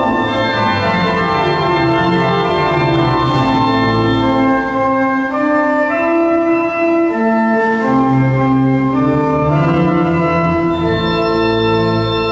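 Large church pipe organ playing sustained chords over a moving bass line.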